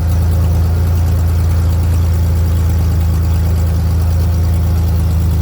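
1994 Ford Ranger engine idling steadily, running to circulate freshly changed oil.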